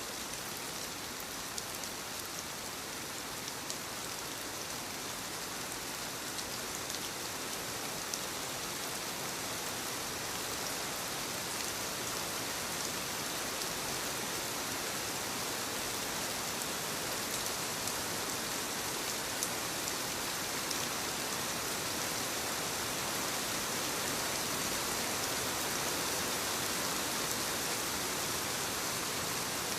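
Steady rainfall: an even hiss with scattered faint drop ticks, growing slightly louder over the span.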